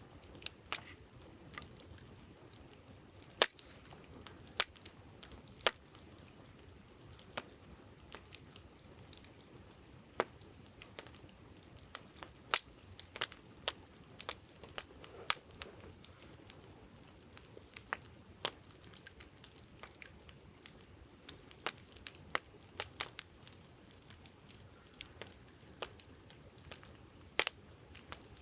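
Wood campfire crackling, with sharp irregular pops and snaps of the burning logs, some of them louder, over a faint steady hiss.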